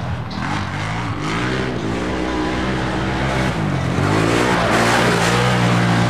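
Off-road race vehicle's engine revving hard, its pitch rising and falling as it accelerates and lifts off, with a drop and climb back up a little past halfway.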